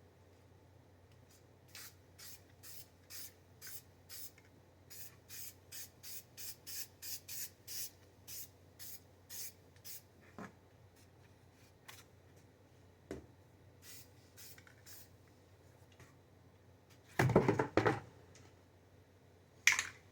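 Spray paint going onto a mower deck in a quick run of short hissing bursts, about two a second, thinning out to a few scattered ones. A louder clatter comes near the end.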